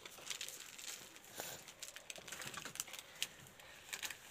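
Faint crinkling and scattered light clicks of a small plastic wrapper being fingered and crumpled in a toddler's hands.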